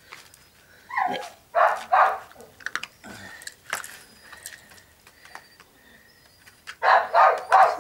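A puppy barking in short yaps: a falling whine-like cry about a second in, two quick yaps just after, and a rapid run of yaps near the end.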